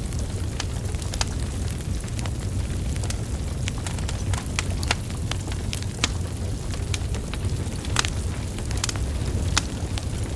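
Wood fire burning, logs crackling and popping irregularly over a steady low rumble of flame, with a few sharper pops about eight and nine and a half seconds in.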